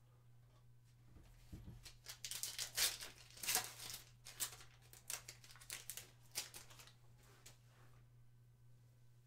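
A trading-card pack wrapper being torn open and crinkled, a run of sharp crackling tears that is loudest about three seconds in and tapers off by the last couple of seconds.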